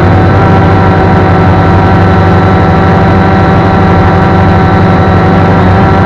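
Electric motors and propellers of a drone running steadily in flight, a loud, even hum with a whine of several steady tones, picked up close by the camera riding on the aircraft.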